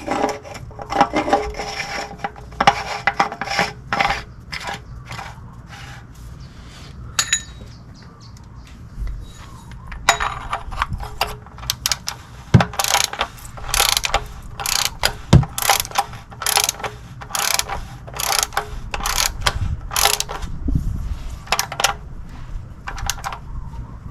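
A 3/8-inch ratchet clicking in short runs of strokes, tightening the new oil filter with a cup-type filter wrench.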